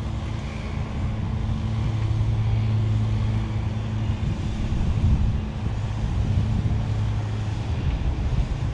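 A steady low mechanical hum, like a motor running at a constant speed, under a rumble of wind on the microphone.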